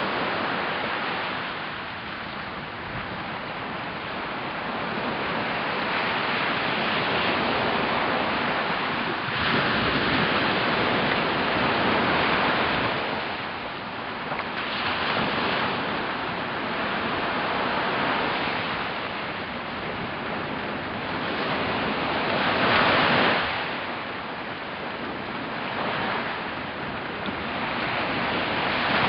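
Sea surf breaking on a sandy beach among rocks and washing in, the rushing noise swelling and easing as each wave comes in, with one of the louder breaks about two-thirds of the way through.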